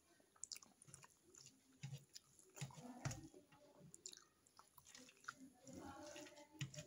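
Faint close-up chewing with short, sharp, wet mouth clicks and smacks, while fingers mix soft rice and kadhi in a stainless-steel thali.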